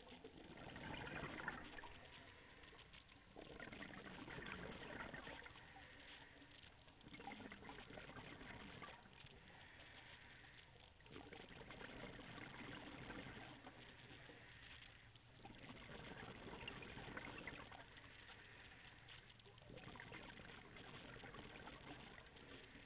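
Faint scuba breathing through a regulator underwater: exhaled bubbles gurgling up in swells that come and go about every four seconds, with quieter inhale gaps between.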